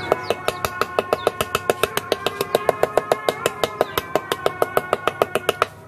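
A knife blade scraping scales off a carp on a wooden board in fast, even strokes, about six or seven sharp rasps a second, which stop shortly before the end.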